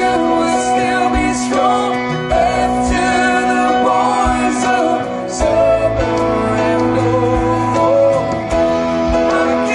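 Live band playing a mid-tempo song: electric guitar, stage piano and hand percussion, with a sustained lead melody line on top.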